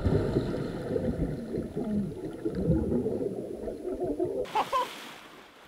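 Pool water churning and bubbling just after a belly flop, heard underwater through a submerged action camera's microphone as a muffled, crackling rumble. It changes abruptly about four and a half seconds in and dies away.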